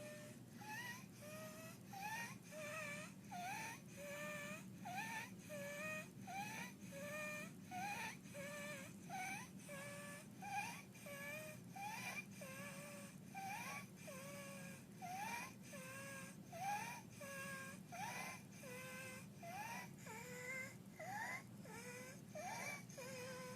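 An infant's stridor from laryngeal dyspnea, a narrowed airway at the larynx. It is a high-pitched squeak with each quick breath, usually rising in pitch, repeating a little more than once a second.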